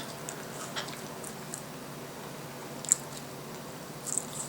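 Someone chewing crispy microwaved french fries: scattered faint crunches and mouth clicks, with a sharper crunch about three seconds in.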